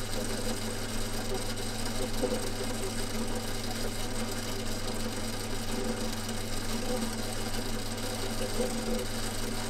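An electric workshop machine running steadily, its motor giving a constant hum with a rougher, uneven layer above it.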